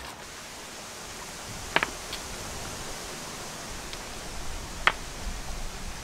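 Stones being set down on a ring of rocks for a fire pit: two sharp stone-on-stone clacks, about three seconds apart, over a steady hiss.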